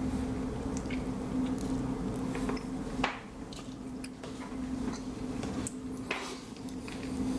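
Wet, squishy sounds of someone biting into and chewing juicy prickly pear fruit, with scattered small clicks and crackles, one sharper about three seconds in.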